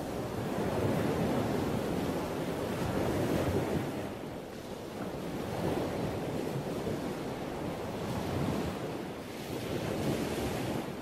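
Ocean surf: a steady rush of waves that swells and eases every few seconds.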